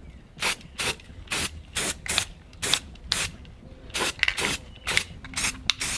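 Aerosol can of Krylon gloss white spray paint hissing in about a dozen short bursts, each a fraction of a second long, with brief gaps between them.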